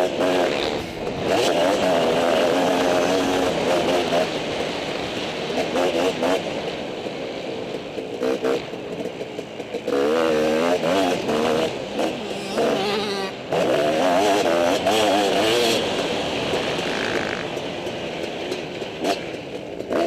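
Motocross dirt bike engine revving hard on the track, heard close from a helmet-mounted camera. It comes in repeated surges, the pitch climbing and dropping as the rider works the throttle and gears, and eases off briefly between them.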